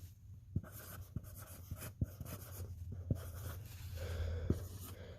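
Sharpie marker writing on a plastic storage tote: a run of soft scratchy strokes with small clicks.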